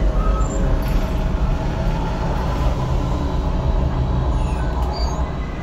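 Steady low rumble of the Millennium Falcon cockpit simulator, its ship-engine effects running with a faint hum over the top.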